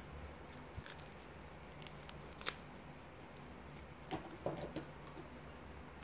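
Fresh banana leaves being handled and pinned, giving a few sharp crisp clicks and crackles. The loudest click comes about halfway through, and a short crackling cluster follows a little later.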